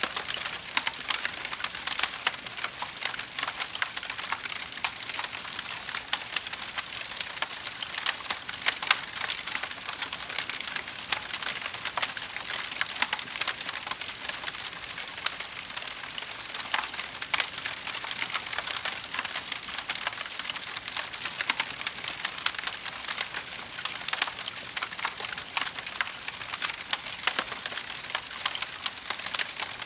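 Fire crackling: a dense, unbroken run of small sharp pops and snaps over a steady high hiss.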